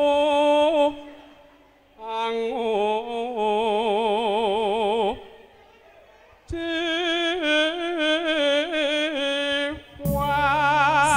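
A solo voice sings long, unaccompanied phrases in Javanese campursari style, with heavy vibrato and short pauses between phrases. About ten seconds in, the band's instruments come in beneath the voice.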